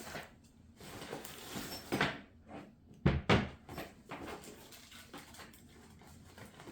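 Kit contents being handled and set down: a few knocks, with two loud thumps in quick succession about three seconds in, and light rustling between.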